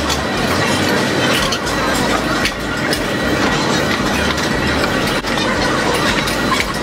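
Loud, steady restaurant din: a dense clatter of dishes and machinery, with many sharp clicks and a faint hubbub of voices.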